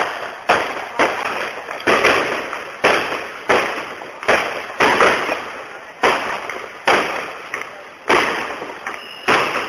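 A fireworks display with shells bursting in quick, uneven succession: about a dozen sharp bangs, each fading away over a fraction of a second before the next.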